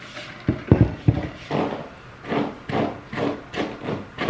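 A few knocks, then a detangling hairbrush being pulled through long wet hair in quick, repeated strokes, about two to three a second.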